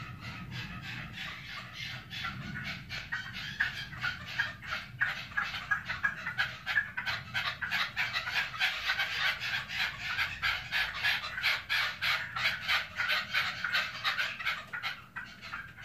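Caged decoy red-legged partridges calling: a fast, steady string of short, sharp chuck notes, several a second, getting louder after about five seconds.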